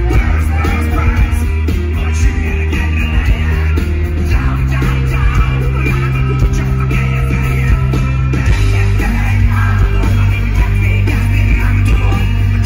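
Live rock band playing loud and steady: drums, bass, electric guitar and keyboards, with a male singer's vocals.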